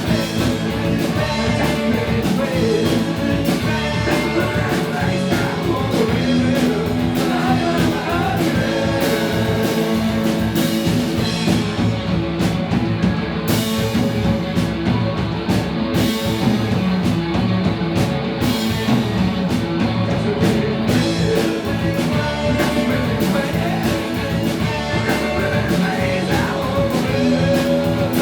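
Rock band playing live with drums, bass and guitar. The cymbals drop out for several seconds midway.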